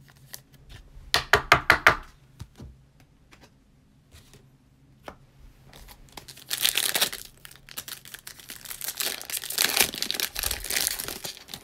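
Foil wrapper of a 2020 Select Football trading-card pack crinkling and tearing as it is ripped open, from about six seconds in to near the end. Earlier, about a second in, there is a quick run of sharp crackles as a pulled card is handled in its clear plastic sleeve.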